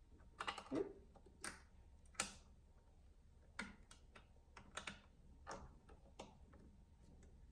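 Irregular faint clicks and taps, with a sharper knock about two seconds in, as the Waltsons Celestial Cub 4 sewing machine's needle plate is handled and pushed back into place.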